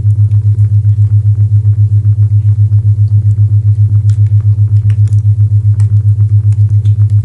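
A loud, low isochronic tone: a hum pulsing on and off about seven times a second, over faint crackling and popping of a wood fire.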